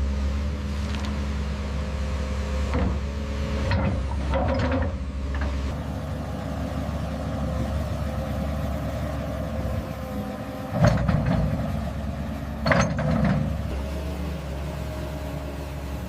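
Heavy construction machine's engine running steadily, with several knocks; the two loudest come about eleven and thirteen seconds in.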